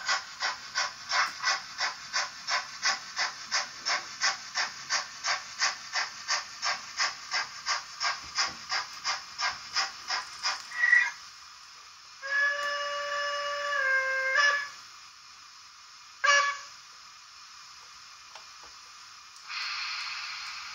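Digital sound of a Märklin BR 56 model steam locomotive, played through its small loudspeaker: even steam chuffing at about three beats a second that stops about eleven seconds in. Then comes a whistle blast of about two seconds, a short toot a couple of seconds later, and near the end a short hiss of steam.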